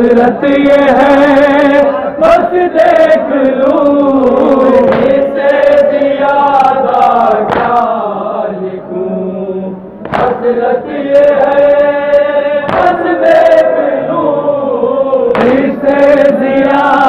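Men chanting a nauha, a Shia lamentation dirge, with a lead reciter and a group singing long, drawn-out melodic lines in unison. Sharp slaps cut in now and then, the hand-on-chest beating of matam.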